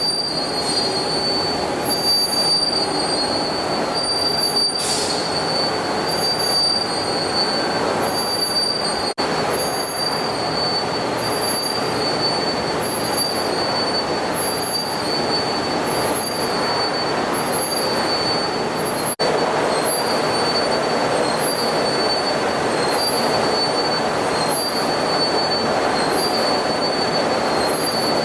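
Steel coil slitting machine running: steady metallic machine noise with a high-pitched squeal that wavers and comes and goes.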